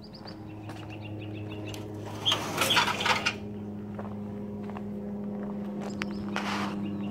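Footsteps on gravel under a steady low hum. A loud rustling burst lasts about a second, starting a little over two seconds in, and a weaker one comes near the end. A few faint high chirps sound in the first two seconds.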